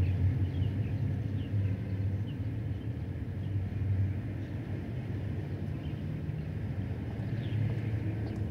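Steady low rumble of distant city road traffic, with birds giving short falling chirps now and then over it.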